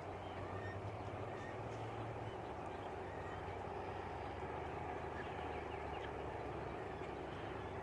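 Steady outdoor background with a low rumble, over which faint, scattered, short bird calls come and go.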